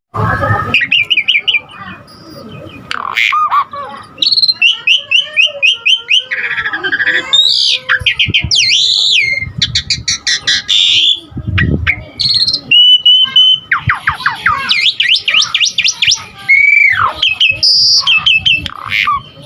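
Asian pied starling (jalak suren) singing a long, varied song packed with borrowed phrases: fast runs of repeated chattering notes, whistled glides and arching sweeps, one phrase after another with hardly a pause.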